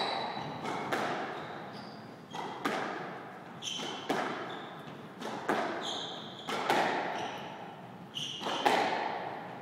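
Squash rally: the ball cracking off racquets and walls about every second and a half, each hit echoing in the enclosed court, with short high squeaks of court shoes on the floor between shots.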